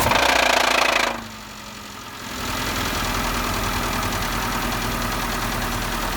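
Renault Logan 2's K7M 1.6-litre eight-valve four-cylinder engine just after starting. It runs high for about a second, dips, then settles about two seconds in to a steady idle with a rhythmic knock from the bottom end: a connecting-rod bearing spun after debris from a broken-up catalytic converter was drawn into the cylinders.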